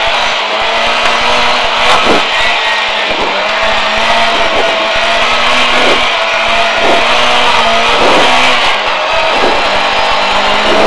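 Rally car engine running hard at speed, heard through the helmet intercom, with brief dips in pitch every second or so as the driver lifts or shifts between corners.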